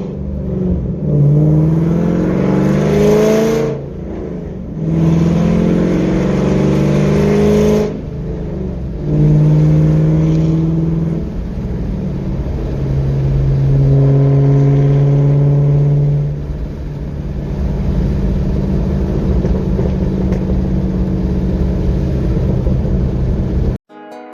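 Chevrolet Camaro SS V8 with aftermarket headers accelerating through the gears. The engine note rises in pitch twice, breaking off at each shift, then settles into steady cruising. The sound cuts off abruptly near the end.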